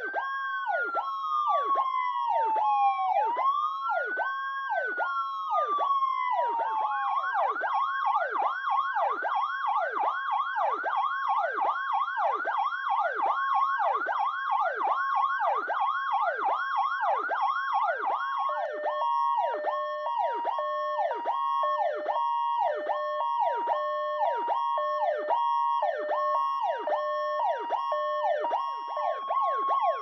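Powercall DTX electronic siren running two tones at once. A rapidly pulsing Powercall warble plays throughout, first over a slow rising and falling wail, then about seven seconds in over a fast yelp. A little after halfway the second tone changes to a pattern stepping between a high and a low pitch.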